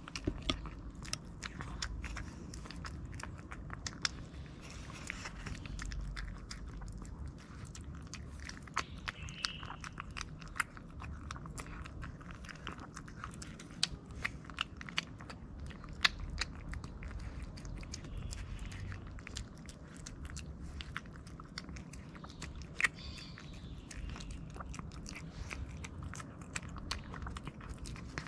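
A cat eating soft wet food from a foil tray: wet chewing and smacking, with many irregular sharp clicks.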